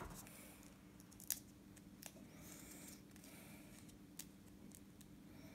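Near silence with a faint steady hum, broken by a few soft clicks and light rustling from paper and sticker sheets being handled; the sharpest click comes just over a second in.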